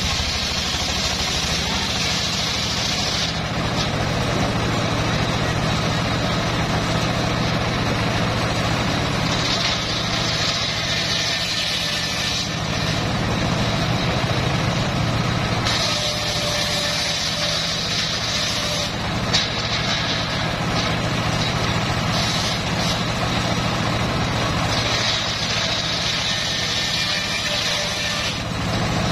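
Homemade engine-driven circular saw ripping a hardwood log. The engine runs steadily, and the blade's high-pitched cutting noise comes and goes in stretches of a few seconds, about four times, as the wood is fed through.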